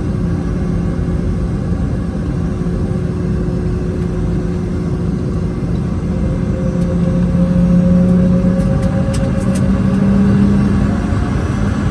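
Boeing 717-200's rear-mounted Rolls-Royce BR715 turbofan engines running, heard inside the rear cabin: a steady low drone whose tones rise and grow a little louder about halfway through.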